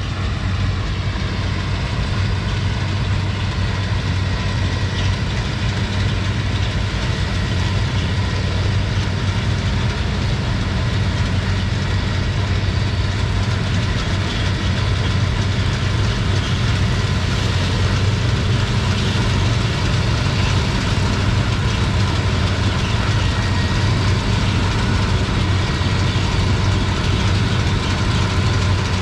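John Deere CH570 sugarcane harvester and Isuzu Deca 320 cane truck working side by side: heavy diesel engines running steadily under load, with a thin steady whine above the engine note. The sound grows slightly louder as the machines come closer.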